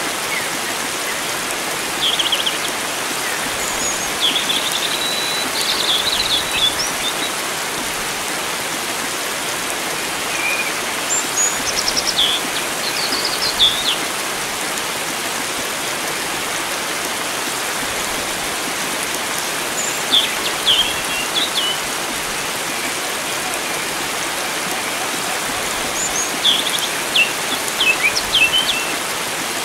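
Steady rush of flowing water, with wild songbirds chirping over it in short phrases of high notes, about five times.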